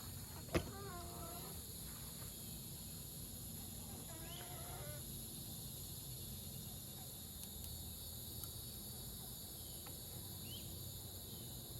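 A chicken giving two short, wavering calls, one about half a second in and another around four seconds in. A single sharp click comes just before the first call.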